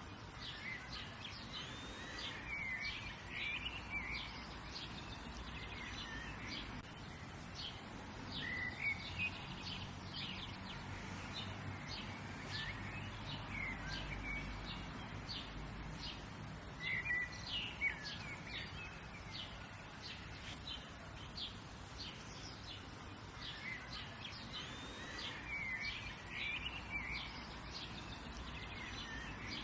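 Several songbirds chirping and warbling in quick, repeated calls, over a steady low background hum.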